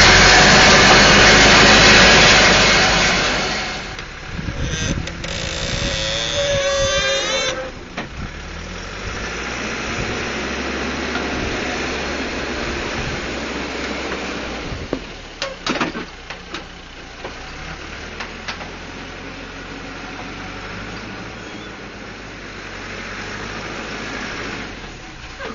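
Caterpillar 416C backhoe's turbocharged Perkins diesel working at high revs for the first few seconds, then dropping back to a steadier, lower run. A wavering whine comes in a few seconds later, and a handful of metal clanks come about two-thirds of the way through.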